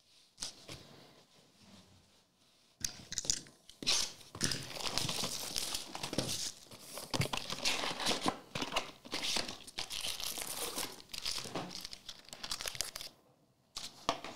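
Foil trading-card packs crinkling and rustling as they are handled and pulled out of the opened cardboard card box, with some tearing. It starts about three seconds in, runs busily for about ten seconds and stops shortly before the end.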